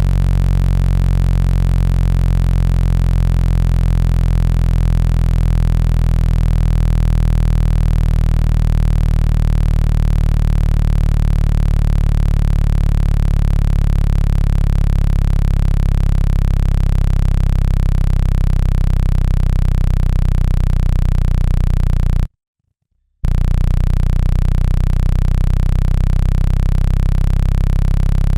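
Steady low electronic tone of a 165 Hz speaker-cleaning sound, a buzzy hum with many overtones meant to vibrate water and dust out of a phone speaker. It cuts out for about a second near the end, then resumes unchanged.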